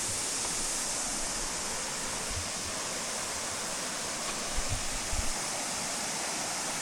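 Steady rush of water from a small cascade on a bush stream, an even hiss with no change in level. A few soft low thumps come near the end.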